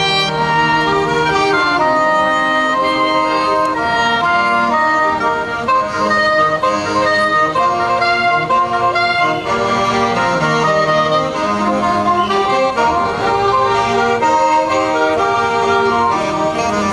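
Saxophone ensemble of soprano, alto and tenor saxophones playing a piece live in several-part harmony, the parts holding notes and moving between them together.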